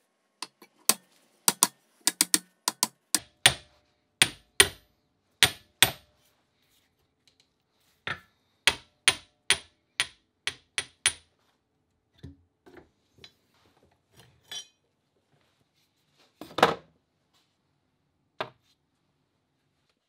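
A hand hammer tapping the steel head of an old ball peen hammer, sharp metal-on-metal taps with a short ring. They come in two quick runs with a short pause between, then a few softer taps and one heavier knock late on.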